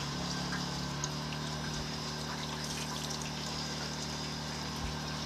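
Water running from a faucet, fed by an electric water pump that hums steadily. The pump's pitch drops slightly about a second in. The water is flowing through a homemade copper-coil heater that is not yet heating it enough.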